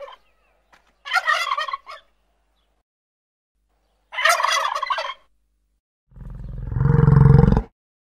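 Male turkeys gobbling in short bursts: one ending right at the start, another about a second in and a third about four seconds in. About six seconds in comes a deeper, longer animal call lasting about a second and a half, the loudest sound here.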